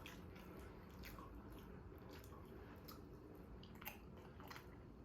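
Faint chewing and wet mouth clicks of people eating soft steamed momo dumplings, scattered irregularly over a low room hum.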